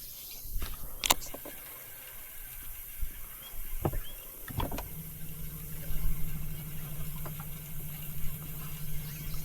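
A few sharp knocks, then a boat's electric trolling motor starting a steady low hum about five seconds in.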